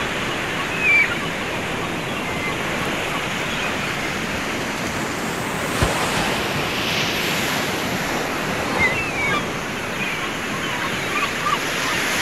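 Ocean surf on a sandy beach: a steady, even wash of breaking waves. A few faint high chirps come through now and then, and there is a single sharp click a little before the middle.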